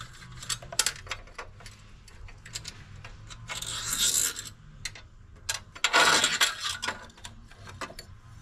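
Hands removing a battery hold-down inside a mower's battery compartment: many small clicks and taps of parts being handled, with two short scraping rustles, the louder one near the end.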